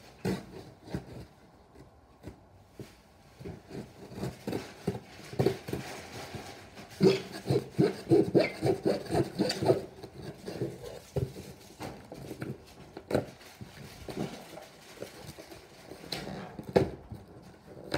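A knife sawing and scraping at a present's packaging in short, irregular strokes, busiest for a few seconds in the middle, with a few sharper knocks near the end.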